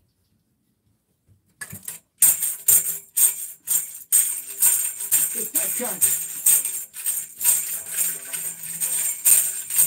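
Handheld tambourine shaken and struck, its jingles ringing in time at about two strikes a second over a backing music track with a steady beat. It starts about a second and a half in, after near silence.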